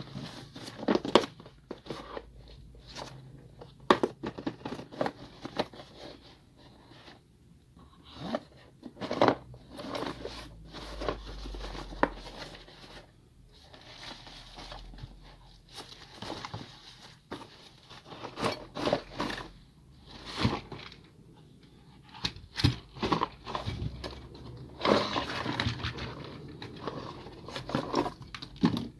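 Hands handling packaging and parts: irregular crinkling and rustling with scattered clicks, taps and scrapes.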